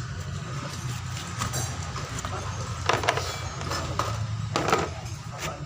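Car air-conditioning compressor off a Toyota Kijang Kapsul, its front hub turned by hand, giving rough, grating rasps, the loudest about three and about four and a half seconds in. This is the 'ngorok' growl of a faulty compressor, the fault the repair sets out to find.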